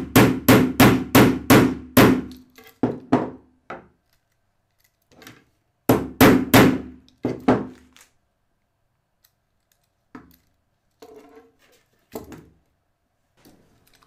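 Hammer tapping a thin metal shaft into the hub of a 3D-printed plastic disc: a quick run of taps, about three a second, that slows and stops after about four seconds. A second short run of four or five taps comes about six seconds in, then a few light knocks.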